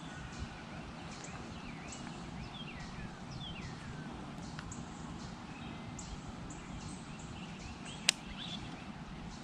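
Outdoor ambience with a steady low rush and small birds chirping now and then, and one sharp click about eight seconds in.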